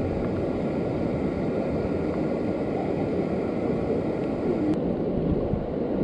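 Steady rushing of river water from a waterfall and rapids, with a slight change in tone about five seconds in.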